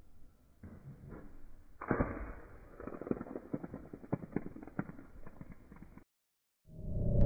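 Cork popping out of a vinegar-and-baking-soda bottle rocket about two seconds in, driven by the gas pressure building inside the bottle, followed by a few seconds of irregular clicks and crackle. Near the end a rising rumble begins.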